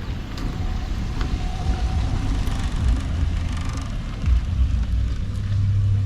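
A car on the move: a steady low engine and road rumble, with a hum that grows stronger about halfway through.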